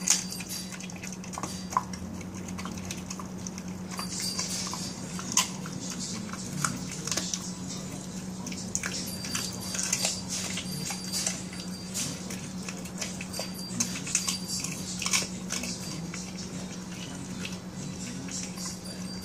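Pembroke Welsh corgi chewing raw chicken: irregular wet clicks and snaps of its jaws and teeth on the meat, with a few sharper snaps standing out.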